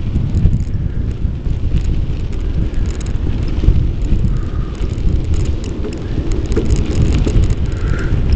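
Wind and riding airflow buffeting the microphone of a bike-mounted Polaroid Cube camera, a loud, constant, gusty rumble. Light rattling clicks run through it, heaviest past the middle.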